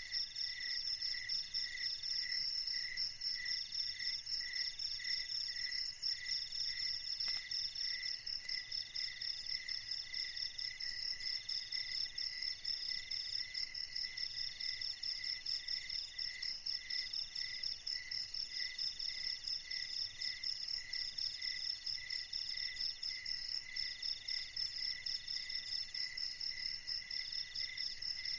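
Night chorus of insects: several steady high-pitched chirping and trilling calls at once. One pulses about twice a second, and another trills in long runs broken by short gaps.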